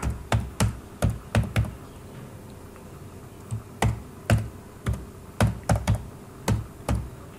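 Keys struck one at a time on a computer keyboard, about fifteen separate clicks at an uneven pace, with a pause of about two seconds partway through.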